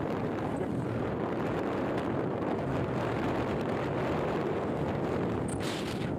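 Motorcycle running steadily at road speed, its engine drone mixed with wind rushing over the microphone, with a brief hiss near the end.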